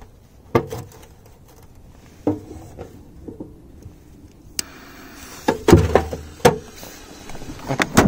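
Metal clanks and knocks from a top-loading washing machine's drum flaps and lid being handled and shut, the loudest in the second half. A steady hiss sets in about halfway through as the firecracker's fuse burns.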